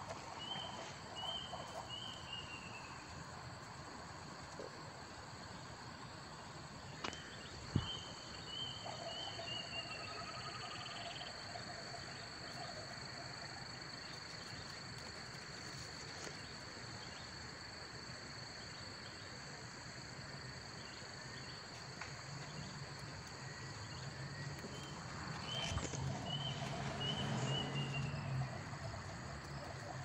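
Background ambience of calling insects: a steady high-pitched drone throughout, with short groups of quick chirping notes that come three times, near the start, about eight seconds in, and near the end. There are two sharp clicks about seven seconds in.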